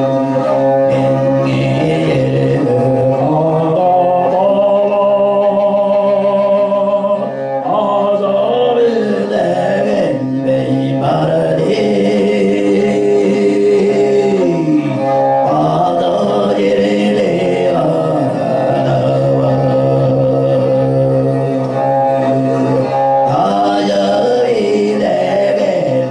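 Tuvan throat singing: a steady low vocal drone with a melody of bright overtones stepping and gliding above it, accompanied by a bowed fiddle.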